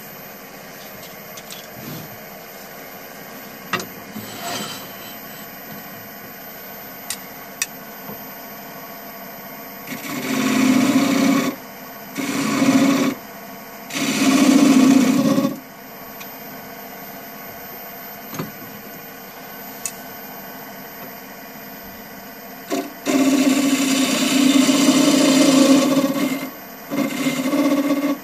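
Wood lathe motor humming steadily while a turning tool cuts into the spinning wooden bowl blank in five separate passes, each a loud scraping rasp lasting one to three seconds.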